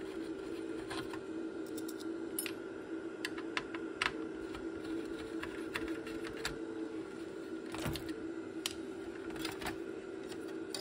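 Small irregular clicks and taps of hand tools working on a circuit board while a component is desoldered, over a steady hum.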